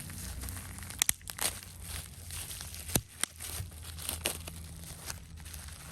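Plastic packaging crinkling and rustling as small parts are unpacked, with a few sharp clicks of small hard pieces knocking together.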